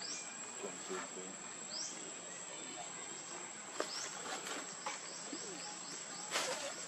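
Outdoor ambience of a steady high-pitched insect buzz, with short rising bird chirps about once a second. A few faint clicks and rustles, louder once near the end.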